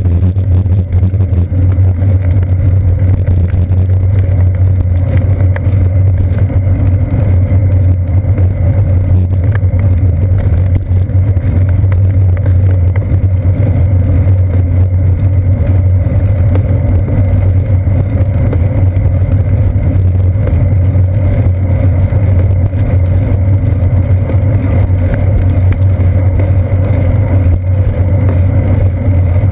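Loud, steady low rumble of a bicycle rolling over pavement, picked up as vibration by a GoPro Hero 2 clamped to the seat post.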